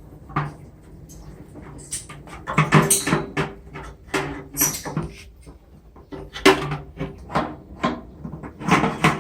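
An irregular series of knocks and clanks from tools or hands working on the metal parts of a front-loading washing machine's drum spider during disassembly. The knocks are busiest from about two seconds in.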